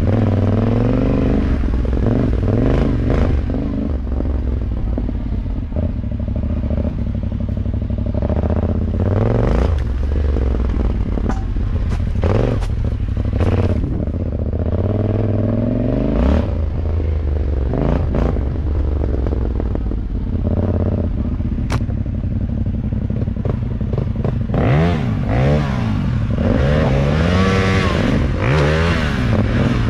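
Motorcycle engine being ridden over a rough dirt trail, its pitch rising and falling over and over as the rider opens and closes the throttle and changes gear. Clatter and knocks from the bike running over bumps come through now and then.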